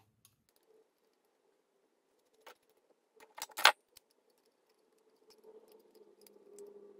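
Small metal nuts and washers clinking as they are handled and fitted onto the brass terminal studs of an Albright electric-vehicle contactor: a few light clicks, with the loudest clink about three and a half seconds in.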